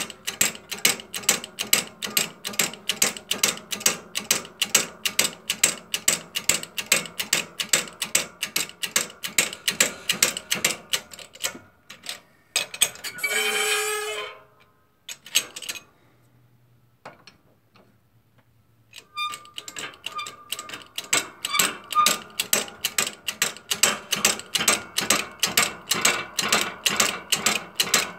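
12-ton hydraulic shop press being worked to force new bearings onto a Shopsmith Mark V drive sleeve: a fast, regular clicking of about three strokes a second. The clicking stops about eleven seconds in, a short squeaky tone sounds near fourteen seconds, and the clicking starts again about nineteen seconds in.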